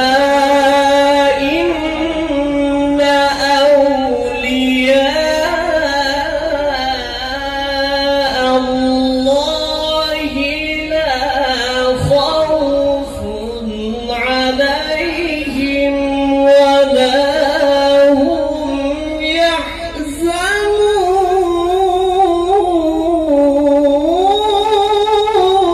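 A man reciting the Quran in the melodic tajweed style, in a high voice, drawing out long ornamented notes that waver and glide between pitches, with short breaks between phrases.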